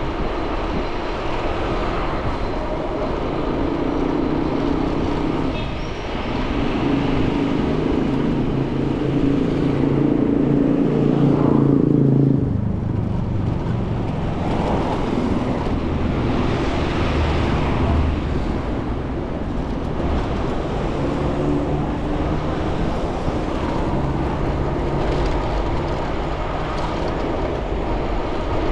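Ride noise from an e-bike moving through city traffic: a steady rush of tyre and wind noise with engine hum from cars. A loud low hum builds and then cuts off abruptly about twelve seconds in.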